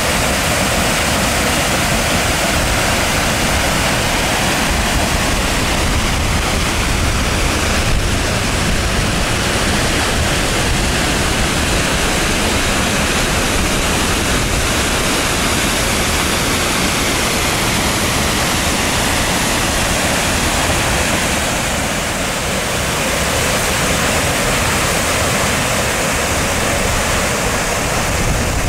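Waterfall pouring from a cave mouth onto rocks: a steady, loud rush of falling water.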